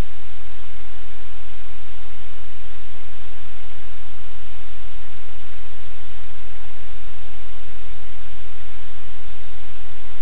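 Loud, steady static hiss with a low electrical hum beneath it, unchanging throughout: noise in the webcam's audio feed rather than any sound in the room.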